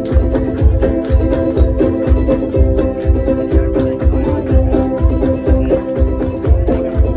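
A live folk song in an instrumental passage: stringed instruments over a steady low drum beat of about two beats a second.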